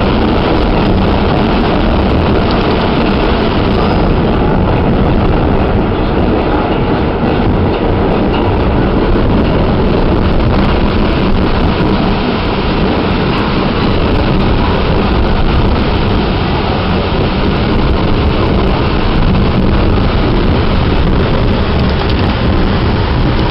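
Staten Island Railway train running along the line, heard from inside the passenger car: a loud, steady rumble of wheels on the rails and the car's running noise.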